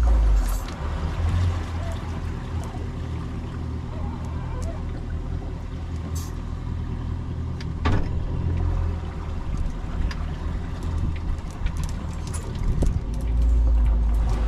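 Steady low rumble of the boat's engine running at idle, with gusts of wind on the microphone swelling near the start and near the end, and a sharp knock about eight seconds in.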